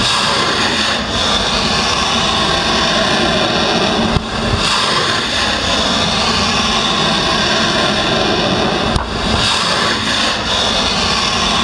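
Loud roar of ship-launched cruise missiles being fired, several shots cut together. Each is a dense rushing roar that falls away in pitch, and the sound breaks off sharply at the cuts.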